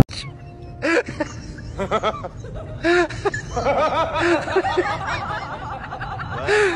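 A person laughing: short snickers and giggles at first, running into more continuous laughter from about halfway through.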